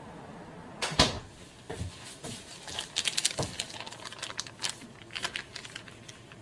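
A sharp knock about a second in, then an irregular run of small clicks and taps from objects being handled.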